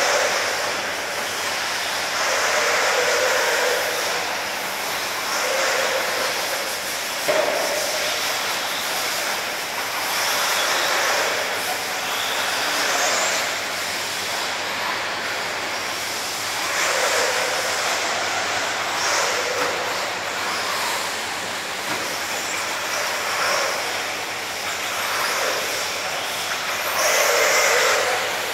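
Radio-controlled 1/8-scale electric off-road buggies (Tekno EB48) running on a dirt track: a continuous rush of motor and tyre noise that swells and fades every few seconds as the cars pass, with one sharp click about seven seconds in.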